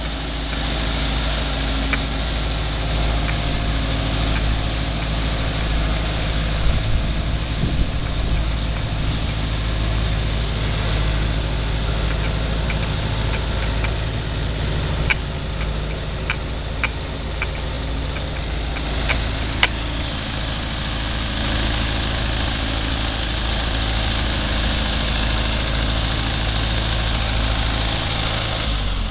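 Case 530 Construction King backhoe's engine running steadily, with a few sharp metallic clanks about halfway through.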